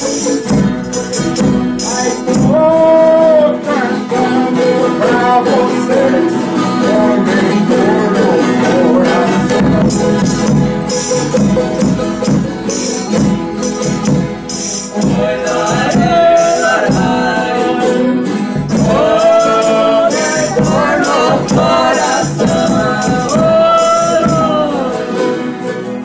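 Folia de Reis folk ensemble singing drawn-out phrases, accompanied by guitars and a jingling tambourine keeping a steady beat.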